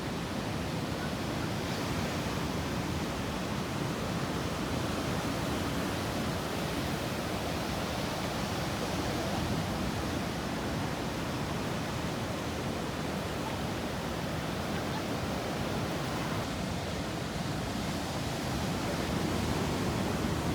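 Steady wash of ocean surf breaking, an even rushing noise with no distinct events.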